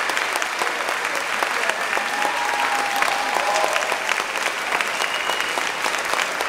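Large audience applauding steadily in a standing ovation, with a few voices calling out in the clapping.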